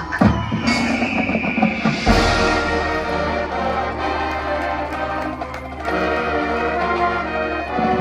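Marching band playing its field show: wind and brass holding sustained chords over the front-ensemble percussion, with a loud full-band entrance about two seconds in.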